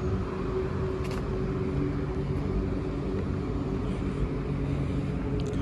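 A motor vehicle engine running steadily, a constant hum over road noise.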